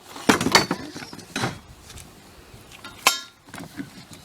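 Knocks, rustles and clinks of swing set parts being handled and unpacked, with a sharp ringing clink about three seconds in.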